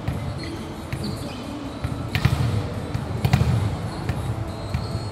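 Volleyballs being hit and smacking the hardwood court, with the thuds echoing around a large arena; the two loudest come about two and three seconds in, among fainter knocks.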